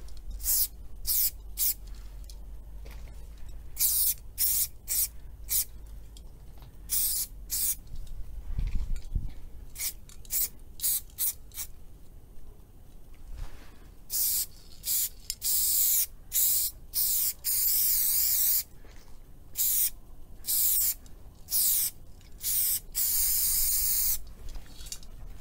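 Aerosol spray paint can sprayed in many short hissing bursts, with several longer sprays in the second half.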